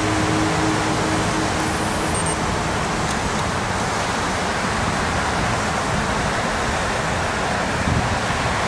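Heavy ocean surf breaking, a steady rushing noise with no rhythm.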